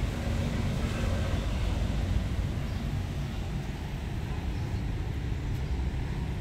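Steady low rumble of outdoor background noise, easing off slightly partway through.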